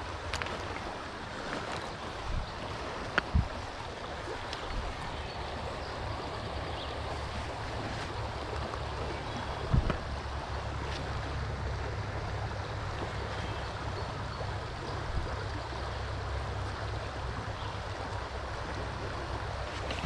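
Stream water running steadily over a trout stream, with a low rumble underneath and two short knocks, about 3 and 10 seconds in.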